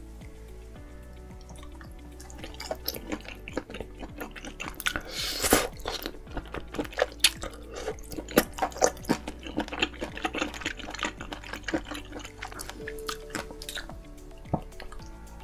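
Close-up eating sounds of a person biting and chewing sauced seafood: a dense run of short clicks and smacks starting about two seconds in, over soft background music.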